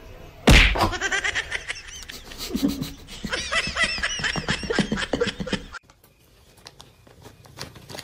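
A sharp thump, then a person laughing hard in quick, repeated high-pitched bursts for about five seconds, cut off suddenly.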